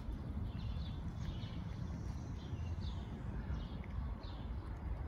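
Small birds chirping repeatedly, short high chirps every half second to a second, over a steady low outdoor rumble.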